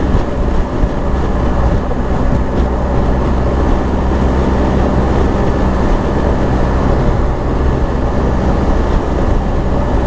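BMW R 1250 GS Adventure's boxer-twin engine running at a steady cruising speed, with steady wind and road noise.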